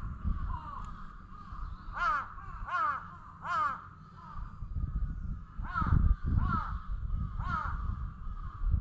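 Crow cawing repeatedly: short, pitched caws in two runs of three, the first run a couple of seconds in, over a steady low rumble.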